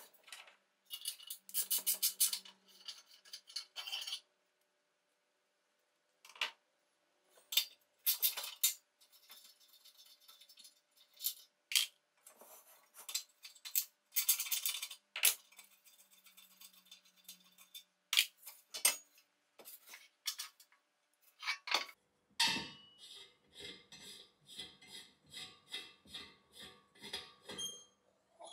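Metal clinks, taps and scrapes of a Tilley FL6 floodlight lamp being taken apart by hand: the housing and fittings knocked and turned loose. Near the end, a quick run of even clicks, about two or three a second.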